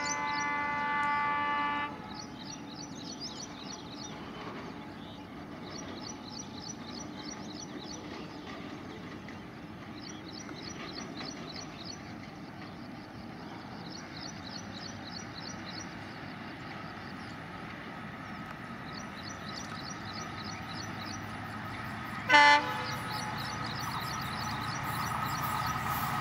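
Birds chirping in short repeated phrases over a quiet background as an EMD WDP4-class diesel locomotive approaches; about 22 seconds in the locomotive gives one short, loud horn blast, and then its engine and wheels on the rails grow steadily louder as it nears. Music ends about two seconds in.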